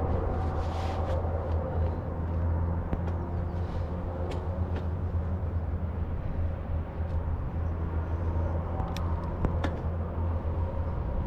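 Riding noise picked up by a bicycle-mounted action camera: a steady low wind and road rumble, with a few sharp clicks scattered through.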